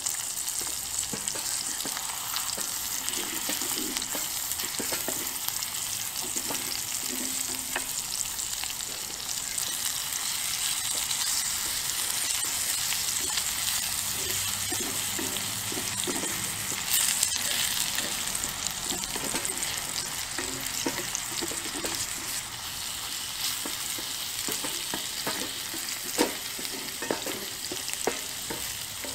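Eggs and sausages sizzling in a cast-iron skillet over a wood-burning camp stove, with a wooden spatula scraping and stirring the eggs in the pan. The sizzle swells briefly a little past halfway.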